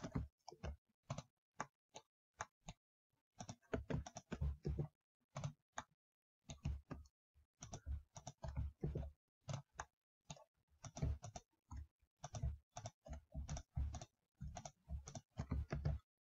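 Computer mouse clicks and keyboard key presses in quick, irregular runs with short pauses between.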